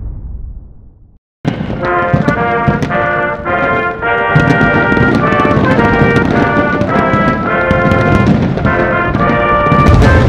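A whoosh sound effect fades out, and after a brief silence, orchestral music led by brass comes in about a second and a half in, with sharp percussion hits.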